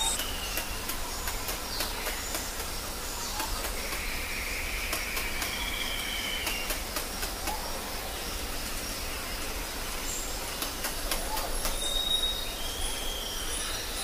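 Rainforest ambience with bird calls: a buzzy call held for about three seconds a third of the way in and a short high whistle near the end, over a steady hiss, with scattered sharp clicks.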